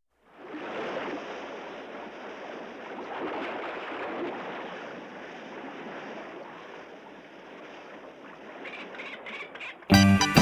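Ocean surf washing, a steady rush that rises and falls a little. About half a second before the end, a guitar-backed song cuts in suddenly.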